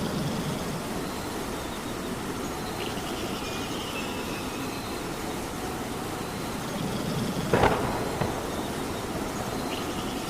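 Steady rain falling, with a sharp knock about seven and a half seconds in and a fainter one just after.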